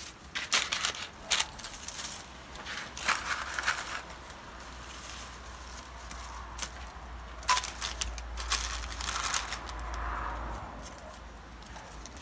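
Handling noise: irregular rustling, crinkling and crackling in clusters, with a low rumble that swells in the second half.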